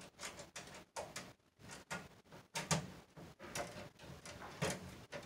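Irregular small clicks, ticks and scrapes of stiff copper ground wires being handled and pushed into a terminal on the bar of a metal breaker sub panel. Two louder knocks come about two and a half and four and a half seconds in.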